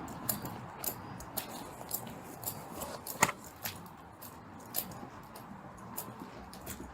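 Light metallic jingling and clinking about every half second, from the gear on a police officer's duty belt (keys and handcuffs) shaking with each step as he walks. One sharper clink comes about three seconds in.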